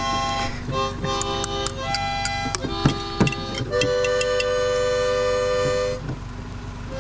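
Harmonica played: a run of held chords changing every second or so, the longest held from about four to six seconds in. Two short knocks sound near the middle.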